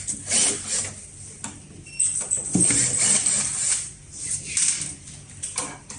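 Handling noises of screw removal on an appliance's back panel: irregular scraping, rubbing and light knocks of tools and screws against the casing.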